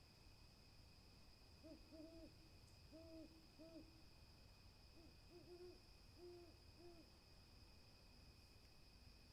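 Owl hooting faintly in the distance: a run of short, low hoots, some in pairs, then a second run a moment later, over a steady high-pitched tone.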